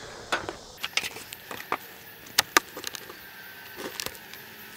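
Wooden beehive parts being handled as the hive is opened: scattered sharp clicks and knocks, with a few louder raps in the middle.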